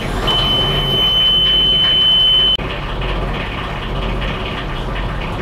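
Newly installed Vetus marine diesel engine running steadily, with an alarm buzzer sounding a continuous high beep over it. The beep stops abruptly about two and a half seconds in, and the engine runs on.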